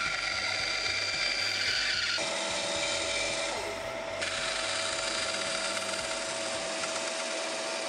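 Bandsaw running and cutting through a block of wood, a steady whine with the hiss of the blade in the cut. The sound changes abruptly twice, about two and four seconds in.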